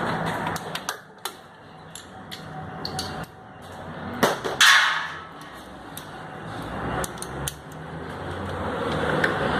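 Scattered metallic clinks and knocks from hand tools during work on a car's starter motor, with one louder short burst of noise about halfway through.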